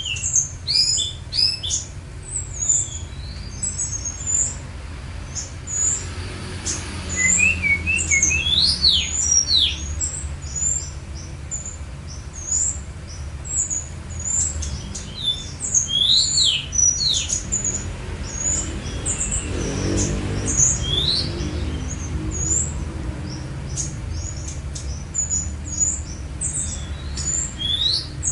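Songbirds chirping and calling in a rapid stream of short, high notes, many of them sharp falling whistles, over a steady low hum.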